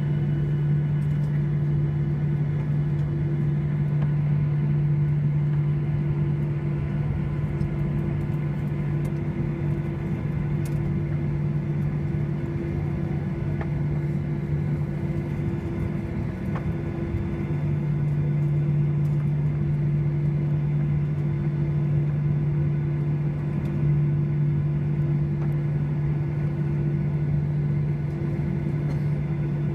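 Steady cabin drone inside a Boeing 737-800, a low, even hum with no spool-up or change in pitch.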